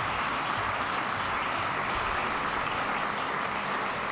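Audience applauding steadily as a speaker is welcomed onto the stage.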